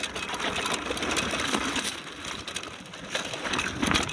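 Downhill mountain bike clattering over a rough dirt trail at speed: a rapid, uneven rattle of the bike's parts and tyres on loose dirt.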